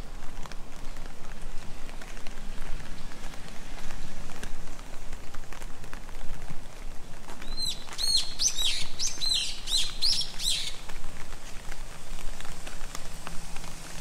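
Steady rain falling, with scattered drop ticks. About halfway through, a bird sings a run of about eight quick, arched high chirps lasting some three seconds.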